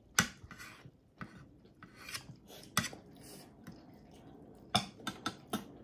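Metal forks and a spoon clinking and scraping against ceramic plates while noodles are served and eaten: scattered sharp clicks, the loudest near the start and about five seconds in, with quieter scraping between.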